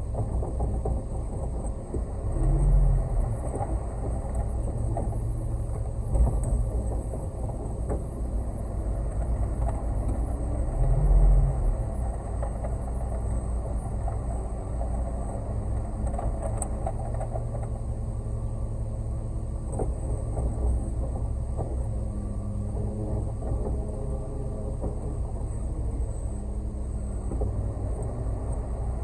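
Concrete mixer truck's engine running steadily, a low rumble that swells briefly louder twice, a few seconds in and again about eleven seconds in.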